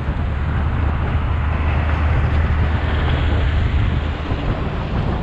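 Wind buffeting an action camera's microphone on a moving bicycle: a steady rushing noise with a heavy low rumble.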